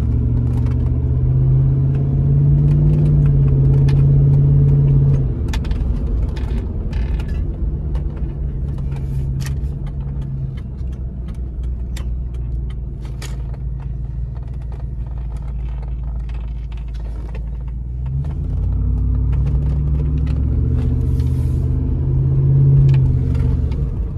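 Pickup truck engine and loud exhaust heard from inside the cab while driving: it pulls harder and louder for the first five seconds, settles to a steady lower drone, then pulls again from about 18 seconds until near the end. Light clicks and rattles from the cab sound over it.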